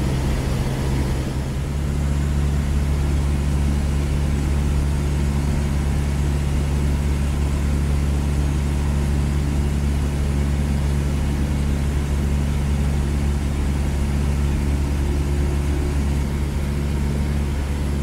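Cessna 152's four-cylinder Lycoming O-235 engine and propeller running steadily in cruise, heard from inside the cabin. The sound dips briefly about a second in, then settles slightly higher in pitch.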